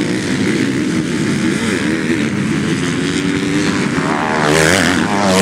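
Several motocross bikes' engines running on the track, their pitches wavering as riders work the throttle. Near the end one bike gets louder and revs up, its note warbling upward as it passes close.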